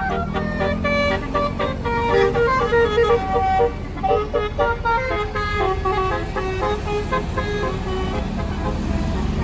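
A bus's telolet basuri musical air horn playing a quick tune of changing notes, over the low rumble of the bus's engine. The horn stops about a second before the end, leaving the engine.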